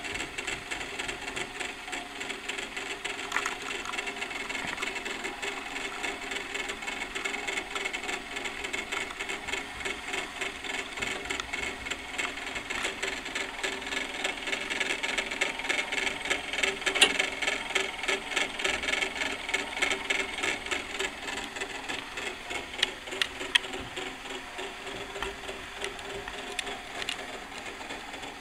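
Clockwork mechanism of an antique cage turnspit running, its gear train giving a fast, even clicking with a few louder clicks past the middle.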